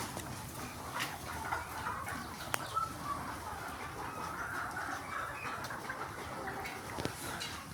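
A flock of desi chickens clucking continuously, with a few sharp clicks mixed in.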